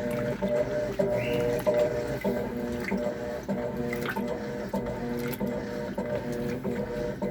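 Electrolux LTC10 top-load washing machine running, a steady mechanical whir and hum that pulses about three times a second.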